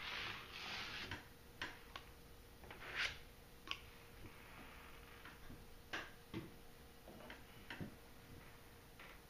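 A sponge spreading Mod Podge glue over the face of a finished jigsaw puzzle, a soft scrubbing for about the first second. Then scattered small clicks and taps at uneven intervals, about nine of them, the loudest about three seconds in.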